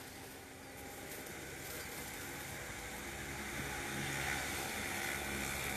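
Faint low hum of a distant engine under a steady hiss, slowly growing a little louder.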